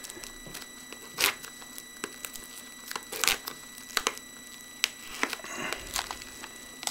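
Trading cards and packaging handled on a table: scattered rustles and light clicks, with louder rustles about a second in and again about three seconds in. Under it runs a steady high-pitched whine from a PC fan.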